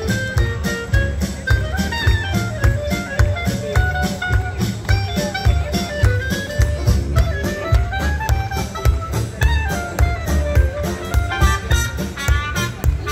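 Upbeat jazzy music with a steady beat and a winding melody line.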